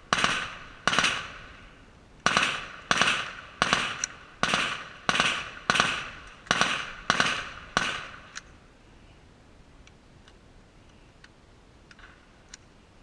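A rapid string of rifle shots, about eleven, roughly one every three-quarters of a second with a short pause early on, each with a short echoing tail. The shooting stops about eight seconds in, leaving only faint clicks.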